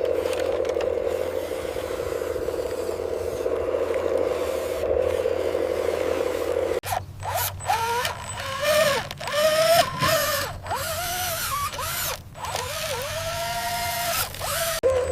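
Small electric motor whirring steadily, then from about halfway changing pitch up and down in short runs with brief stops.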